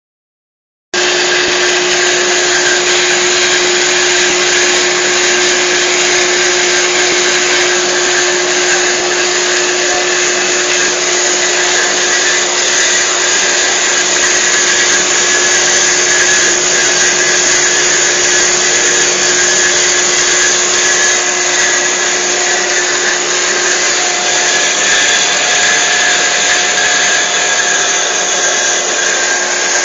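Horizontal metal-cutting bandsaw running as it cuts metal: a steady, unbroken machine noise with a constant hum under a loud hiss, starting abruptly about a second in.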